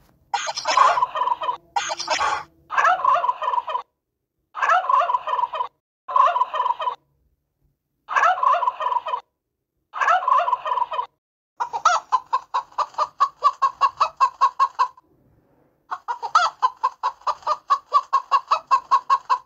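Domestic turkey tom gobbling over and over, each gobble a rapid gurgling rattle about a second long with short gaps between. Past the middle the calls run together into two longer strings of fast, even notes, about seven a second.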